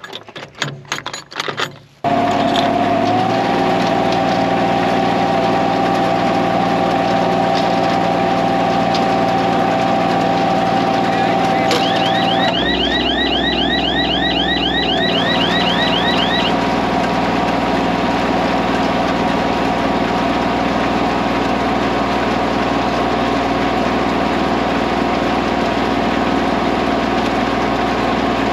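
A few metallic clicks and clanks. Then, about two seconds in, a tractor's diesel engine comes in suddenly and runs steadily. Partway through, a quick run of high chirping ticks, about five or six a second, lasts a few seconds.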